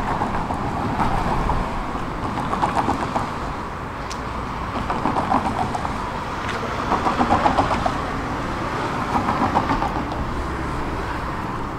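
Road traffic: cars driving past one after another, the noise swelling and fading every couple of seconds.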